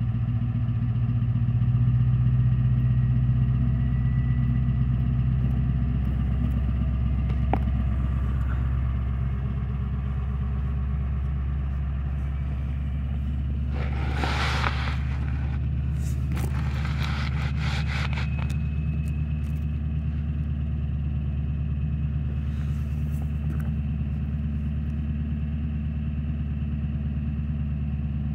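Ford 7.3 PowerStroke V8 turbodiesel, fitted with a Holset HX50 turbo and dual 5-inch exhaust, running steadily; it is a little louder for the first few seconds, then settles to an even idle. A few short scraping sounds come about halfway through.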